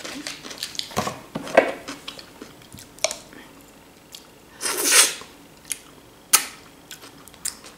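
Close-miked chewing and mouth sounds of a person eating, with scattered small clicks. A louder noisy burst comes about five seconds in, and a sharp click follows as a boiled sausage is bitten off a fork.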